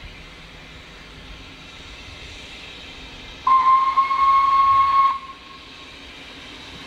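Narrow-gauge steam locomotive's whistle: one loud, steady, high blast of under two seconds, starting suddenly about halfway through and cutting off sharply, sounded on approach to a level crossing.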